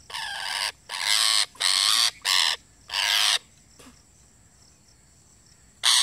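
A green parakeet held in the hand, screeching harshly in a rapid run of about five loud calls, falling silent for about two seconds, then screeching again near the end.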